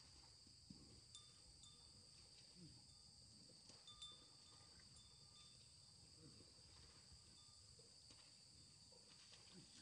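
Near silence: a faint, steady drone of insects, with a few faint short chirps now and then.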